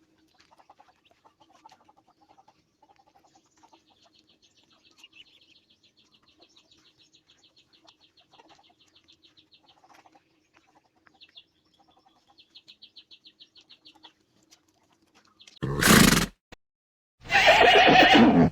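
Horse neighing loudly near the end, a short call and then a longer one. Before that there are only faint, rapid chirping trills and a low hum.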